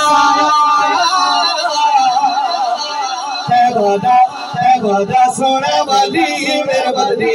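A man singing a naat into a handheld microphone, holding long, wavering melismatic notes without pause.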